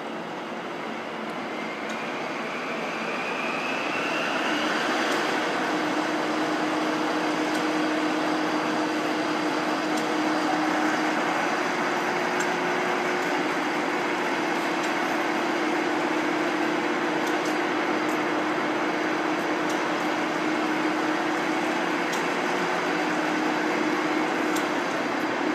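Large Poreba TCG-160 engine lathe running. A whine rises in pitch and the sound grows louder over the first five seconds as it comes up to speed, then it runs steadily with a low hum.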